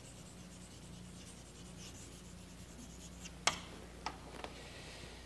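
Chalk scratching faintly across a blackboard as a word is written, followed by a sharp tap about three and a half seconds in and two fainter ticks just after.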